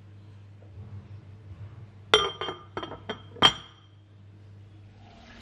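A glass lid being set onto a ceramic cooking pot: about five quick clinks and rattles of glass on ceramic within a second and a half, the last ringing briefly.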